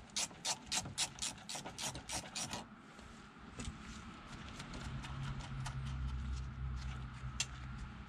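Small socket ratchet clicking at about four clicks a second as it backs a nut off the ignition switch's terminal stud. After about two and a half seconds the clicking stops, giving way to soft rubbing and fiddling as fingers work the loosened nut and wires off the stud.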